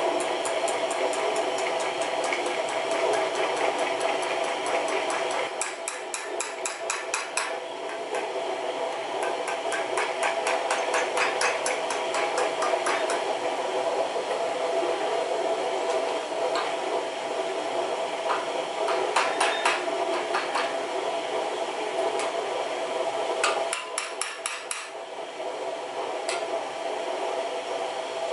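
Steel hammer tapping a small steel cutter into the end of a steel rod clamped in a vise, in quick runs of metallic strikes with short pauses between the runs.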